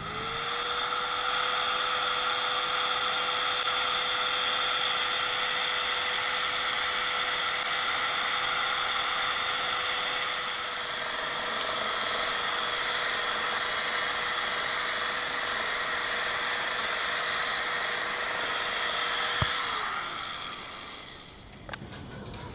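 Harbor Freight 1/2-inch bandfile belt sander sanding the cut edge of a plexiglass aircraft canopy. It speeds up at the start, runs with a steady whine over a high hiss, and stops with a click near the end, winding down.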